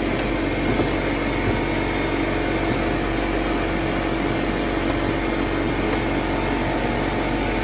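Steady mechanical drone of a motor running without change, with a few faint clicks over it.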